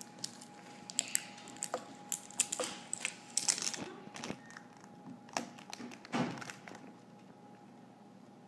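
A child's fingers handling a plastic surprise egg: irregular small clicks, taps and rustles of plastic, busiest in the first four seconds, with one louder bump about six seconds in.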